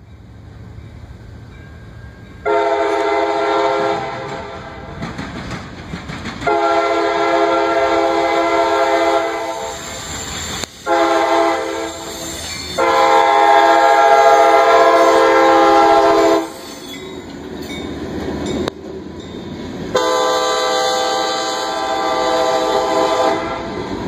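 CSX diesel freight locomotive's air horn sounding a chord of several tones in five blasts: long, long, short, long, the grade-crossing signal, then one more long blast. Under the horn is the rumble and wheel clatter of the freight train approaching and rolling past.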